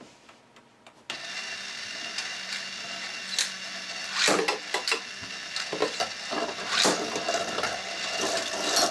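A steady mechanical whirring starts suddenly about a second in, likely the motorised X Tornado Beyblade stadium. About four seconds in, two Beyblade tops are ripped from their launchers, then spin and clack against each other and the plastic stadium.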